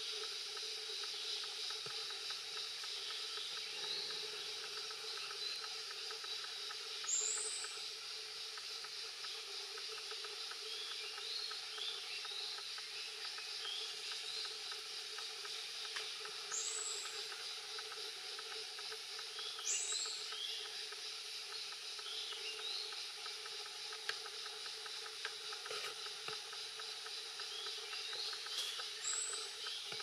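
Steady forest background hiss with short, high, thin bird calls several times, the sharpest ones about a quarter of the way in, twice past the middle, and once near the end.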